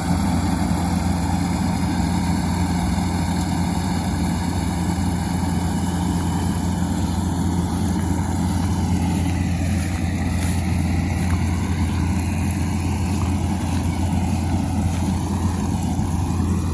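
Kubota combine harvester running steadily while cutting rice, a continuous engine drone with a strong low hum.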